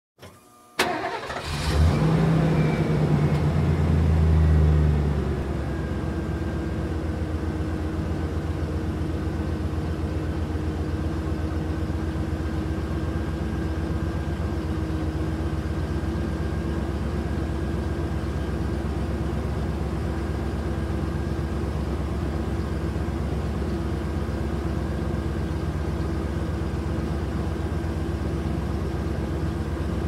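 Truck engine starting: a brief crank about a second in, then it catches and runs at raised revs for a few seconds before settling into a steady idle about five seconds in.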